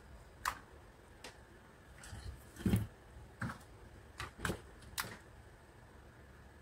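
About seven sharp clicks and light knocks of pliers and wires being handled against a plastic blender housing, spread irregularly; the loudest, a duller knock, comes near the middle.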